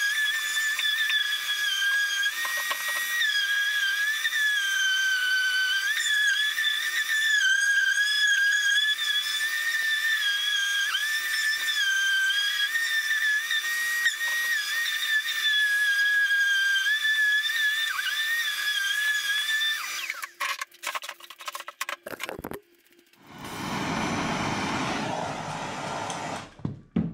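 Random orbital sander with a dust-extraction hose running on pallet wood, a steady high whine that wavers in pitch as it is pressed and moved over the boards. It stops about twenty seconds in, followed by scattered clicks and a few seconds of rushing noise.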